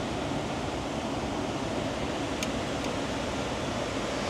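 Steady rushing noise of water pouring over a spillway, even and unbroken.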